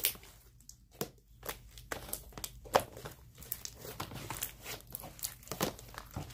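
Slime being squished, kneaded and pulled by hand, giving a run of irregular sticky clicks, pops and crackles.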